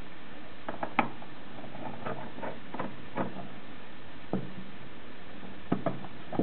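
Screwdriver and screws clicking and tapping against the sheet-metal case of a Playon!HD network media player as the hard-disk bay cover is unscrewed, about a dozen scattered clicks, the sharpest about a second in. Near the end come a few knocks as the metal cover panel is lifted off.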